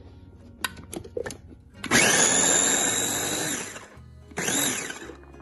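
Small electric food chopper pulsed twice to coarsely crush chopped onion and green chili: a whirring run of about two seconds that winds down, then a second, shorter burst. A few light clicks come first as the motor top is handled.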